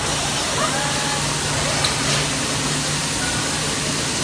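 Steady hiss of gas brazing torch flames in a robotic brazing cell, over a low steady machine hum, with a single light click about two seconds in.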